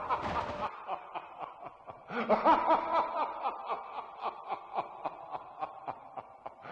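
A long spooky villain-style laugh, a quick run of repeated 'ha-ha' pulses that grows louder about two seconds in.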